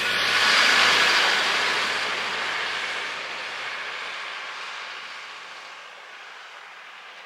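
A vehicle passing by: a rush of noise that swells to a peak about a second in, then fades away over several seconds.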